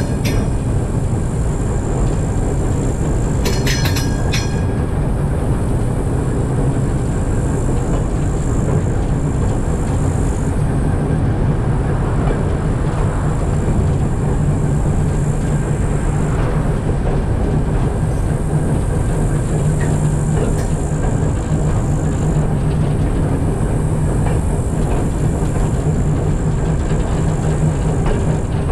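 TEM2 diesel shunting locomotive running under way with a train of empty open wagons: a steady low engine rumble.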